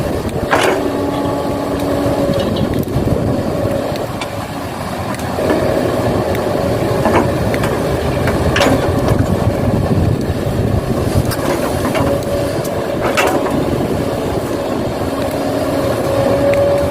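Excavator working: a motor runs steadily with a constant tone, punctuated by a few sharp knocks.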